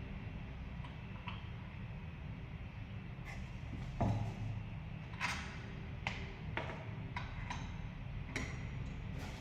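Hard objects being handled: about ten sharp clicks and clinks from about three seconds in, the loudest with a dull knock about four seconds in, over a steady low hum.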